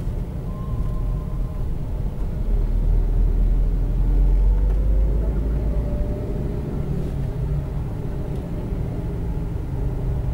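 Car engine and road rumble heard from inside the cabin while driving; the deep rumble swells a few seconds in and then eases.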